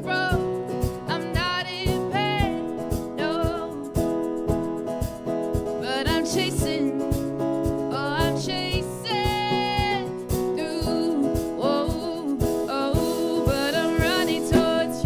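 Song with a sung melody over a strummed guitar keeping a steady rhythm.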